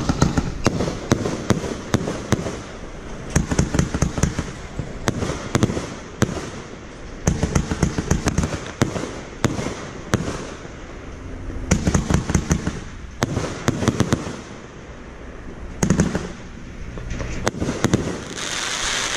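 Hop Kee Break Free 23-shot consumer firework cake firing: clustered volleys of sharp launch thumps and bursts from its mines and brocade aerial shells, a new volley every couple of seconds. Near the end there is a dense hiss.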